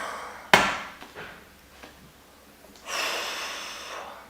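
A sharp knock on a table about half a second in, then about a second of rattling clatter with some ringing, like a stack of poker chips being pushed into the pot.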